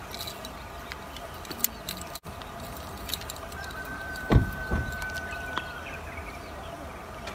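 Nylon gill net and its plastic floats ticking and rustling lightly as they slide through the hands, over a faint steady hum; a dull thump about four seconds in.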